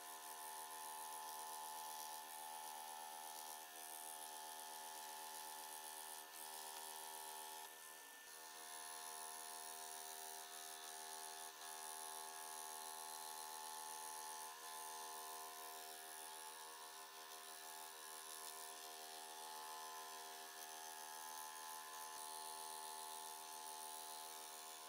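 Scroll saw running steadily, its blade cutting through a thick block of wood, giving an even, steady hum.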